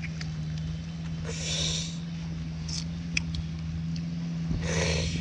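An engine running with a steady low hum. Two short rushes of noise come about a second and a half in and near the end, with a light click in between.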